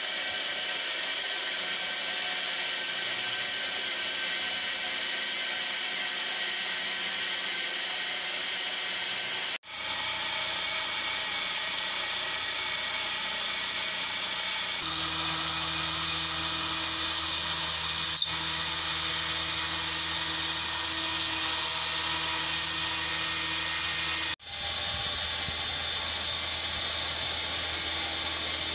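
CNC milling machine's 10 mm three-flute carbide end mill cutting 2017 aluminium: a steady spindle and cutting whine over the hiss of an air blast clearing chips. The sound drops out for an instant twice, and a second cut with a lower, different set of tones takes over about halfway through.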